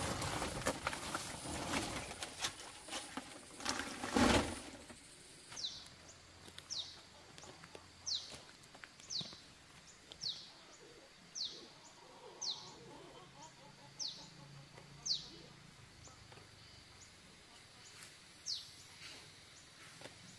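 Rustling and brushing close by for the first four seconds, loudest in one burst about four seconds in. Then a bird repeats a short, high, falling call about once a second, some ten times, with one more near the end.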